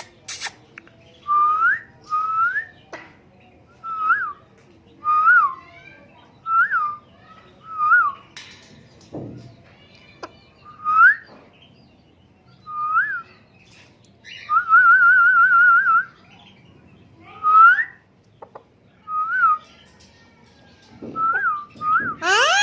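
A parrot whistling: a string of short, clear rising and rise-and-fall whistle notes about a second apart, with one longer warbling trill about two-thirds of the way through and a quick run of rising sweeps near the end.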